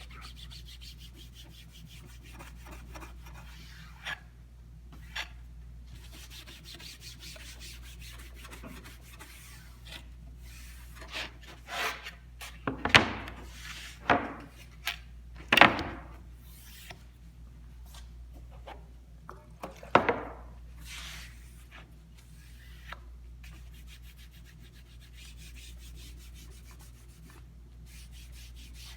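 A wooden drawer edge being scrubbed by hand, wetted with lacquer thinner: irregular rubbing strokes, with three louder sharp knocks around the middle.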